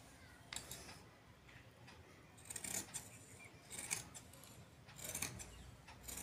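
Scissors snipping through cloth, a few short cuts spaced a second or so apart.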